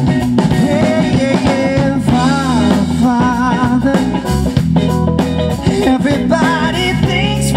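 A live band playing loudly: electric guitar, bass and drum kit, with a voice singing over it from about two seconds in.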